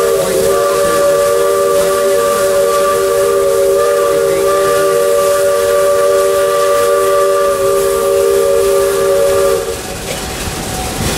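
Narrow-gauge steam locomotive's chime whistle held in one long blast, several notes sounding together as a chord with steam hissing, cutting off about nine and a half seconds in; the train's running noise carries on after it.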